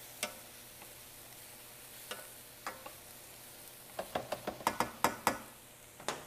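Squash, eggplant and onion sautéing in hot oil in a stainless steel pan with a soft sizzle, while a wooden spatula stirs and knocks against the pan. A few single knocks come first, then a quick run of them about four seconds in.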